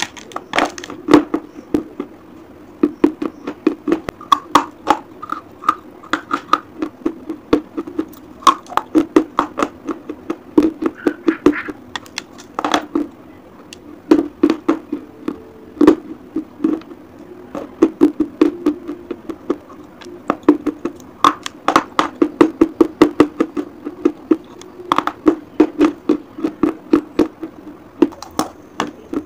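A person biting and chewing sticks of white school chalk close to the microphone: dry, sharp crunches that come in quick runs of several a second, with short pauses between bites.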